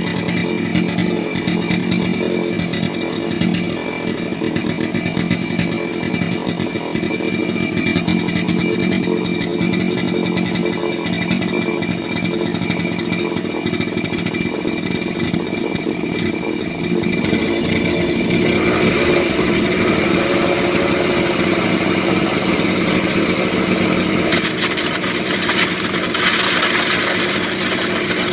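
Small two-stroke brush-cutter engine running steadily, driving a home-made grinder for goat manure. About two-thirds of the way in the sound turns brighter and a little louder.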